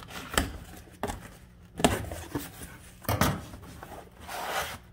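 A taped cardboard shipping box being slit open and its flaps pulled back: a few sharp cardboard knocks and scrapes, then a longer rasping rip of tape and cardboard near the end.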